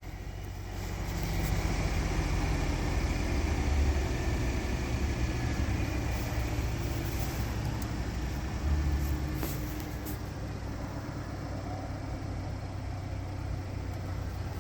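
Low, noisy vehicle rumble that builds over the first couple of seconds, holds for several seconds, then settles lower.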